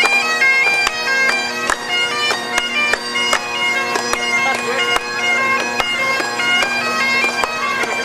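Bagpipes playing a marching tune, the melody stepping from note to note over a steady drone.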